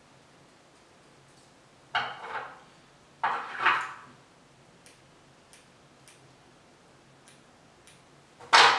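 Handling noise at a fly-tying vise while a streamer brush is wrapped on the hook: a few faint clicks, two short rustles about two and three seconds in, and a louder, sharper burst of noise just before the end.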